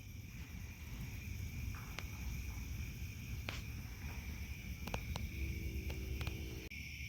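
Crickets trilling steadily in a summer night chorus, with a few faint clicks and a low rumble underneath.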